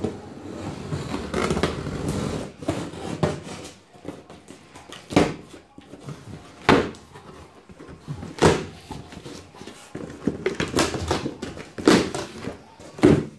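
A knife slitting packing tape along the seam of a large cardboard box, then cardboard being cut and the flaps pulled open, giving about six sharp scrapes and knocks.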